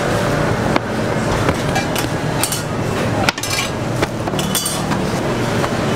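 Rolling pin and hands working pizza dough on a metal counter: scattered knocks and clinks, the sharpest a little past three seconds in, over a steady background din.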